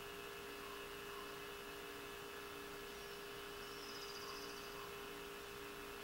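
Steady electrical hum with hiss, and faint high bird chirps, including a short rapid trill about four seconds in.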